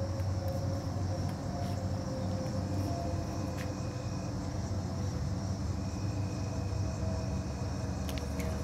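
Steady low outdoor rumble, with faint thin high tones now and then.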